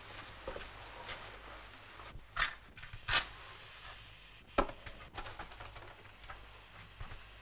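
Old film soundtrack with a steady faint hiss and a few sharp knocks and clinks, about three of them standing out: a wooden chair being sat in and glass bottles being handled.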